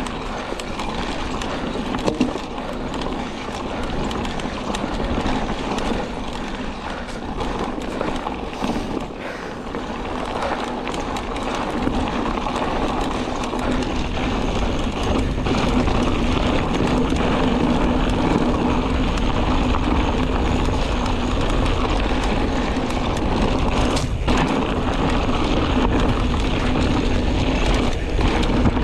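Mountain bike riding over a rough dirt and gravel trail: a steady rumble of tyres on loose stones with scattered clicks and rattles from the bike, and wind noise on the microphone. It grows louder about halfway through.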